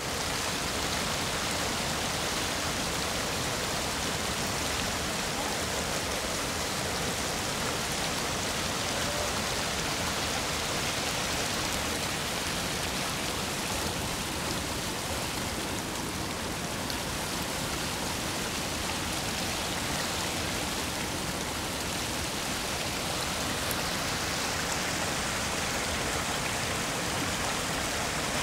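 Shallow river rapids rushing over a flat rock ledge: a steady, unbroken rush of water.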